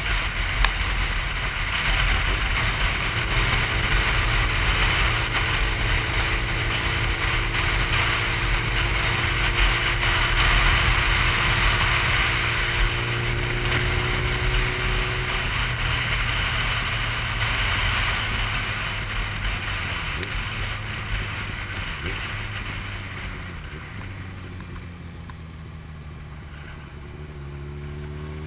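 Wind rushing past a helmet-mounted camera as a motorcycle cruises, its engine running at a steady pitch underneath. About three-quarters of the way through the wind eases as the bike slows, and near the end the engine pitch rises as it accelerates again.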